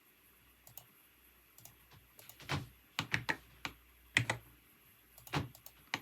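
Computer keyboard typing: scattered keystrokes in short, irregular clusters, faint at first and louder from about halfway through.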